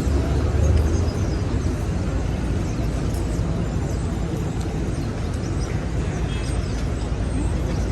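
City street traffic: a steady wash of passing vehicles and engine noise, with a heavier low engine rumble in the first second.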